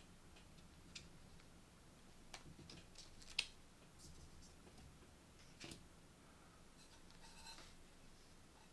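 Faint handling noises from an SSD's case and its card installation guide being lifted out: a few light clicks and taps, the sharpest about three and a half seconds in, and a soft rustle near the end.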